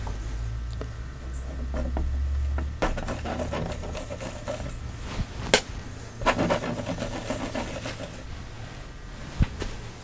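Quiet handling sounds of a painting knife and palette: soft scrapes and light taps, with one sharper click about five and a half seconds in. A low rumble lasts for about the first three seconds.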